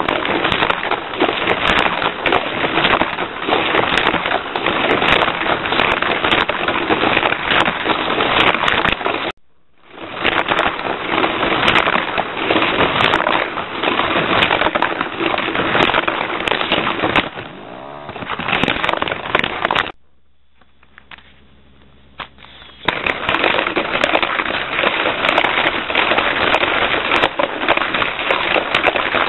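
Small battery-powered Sizzlers-type toy race car running on a plastic track, a dense buzzing, crackling rattle of its motor and wheels. It cuts out briefly about nine seconds in, fades and stops for a few seconds around twenty seconds in, then starts again.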